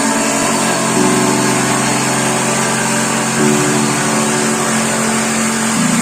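Background music: sustained chords that change every couple of seconds over a steady hiss.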